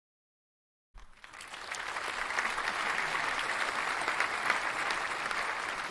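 Applause: many hands clapping together, starting suddenly about a second in and holding steady.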